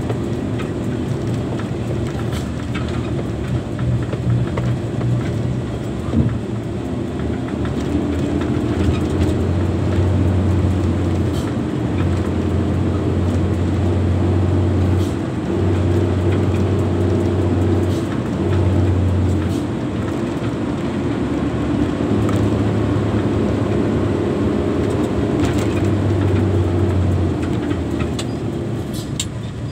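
Diesel engine of a Hino 260 JD dump truck running under load, heard from inside the cab, its low drone swelling and easing several times. Rumble from the dirt road and occasional sharp rattles run alongside.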